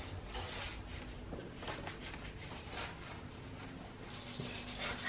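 Faint rubbing of a cloth wiping the painted door sill of a car clean around a small rust spot, with a few soft scuffs.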